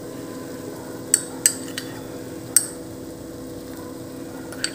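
A metal spoon clinks sharply against a pan about five times, irregularly spaced, over a steady low hum.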